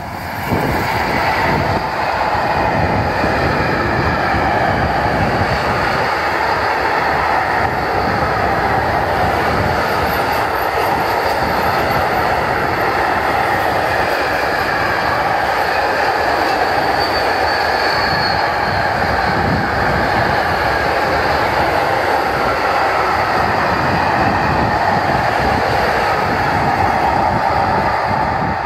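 Freight train of tank wagons behind an E486 TRAXX electric locomotive rolling past close by: a loud, steady noise of wheels on rail that comes up sharply about half a second in as the locomotive draws level, then holds as the wagons go by.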